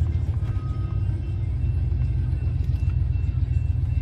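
Freight train rolling through a grade crossing, heard from inside a car: a steady low rumble as the locomotive and covered hopper cars pass on the rails.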